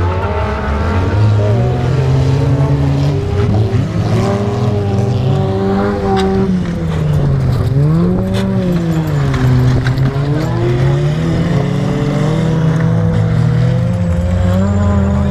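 Several wreck-race cars' engines racing on a dirt track, revving hard and overlapping. The loudest engine's pitch repeatedly drops and climbs again as the drivers lift off and accelerate through the corners.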